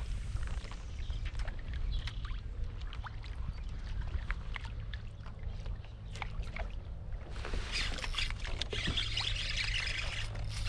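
Water sloshing against a kayak with scattered small knocks and clicks over a steady low rumble; about seven seconds in, a dense chatter of many birds squawking starts over the redfish school and keeps on.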